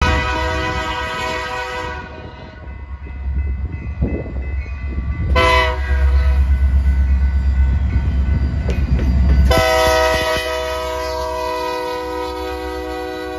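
Union Pacific SD70 diesel locomotive's air horn sounding for a road crossing: a long blast, a short blast about five seconds in, then a long blast from about ten seconds in. Between the blasts, the locomotive's deep rumble grows loud as it passes close by.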